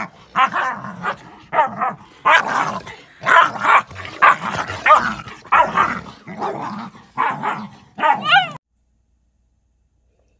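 Puppies yapping and yelping as they play-fight, a quick run of short, high barks and yips about two a second. It cuts off suddenly about eight and a half seconds in.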